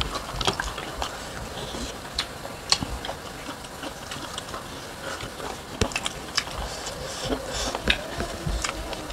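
People eating with their hands: chewing and wet mouth sounds, with many short, sharp clicks scattered throughout.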